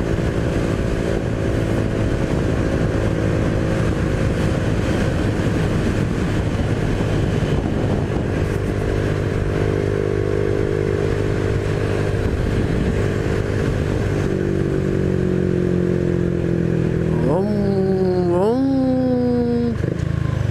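Honda Biz 125's single-cylinder four-stroke engine running at a steady cruising speed, heard with wind and road rush while riding. Near the end a louder pitched sound sweeps quickly up and slowly down three times in about three seconds.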